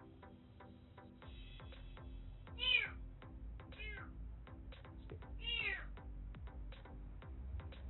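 A lost brown tabby-and-white kitten about a month old meowing three times, the first the loudest, crying for its mother while alone. Background music with a ticking beat runs underneath.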